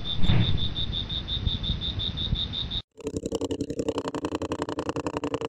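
Insect-like chirping, about six high pulses a second, over rustling from the toy being handled; it cuts off just under three seconds in. A rapid, even mechanical buzz with a low hum then takes over, like a small motor running.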